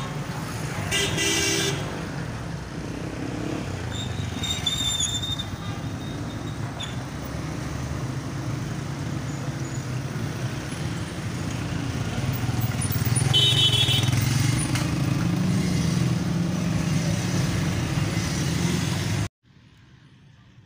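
Street traffic with motorcycle engines running steadily and a few short horn toots. It cuts off abruptly about a second before the end, leaving only faint outdoor background.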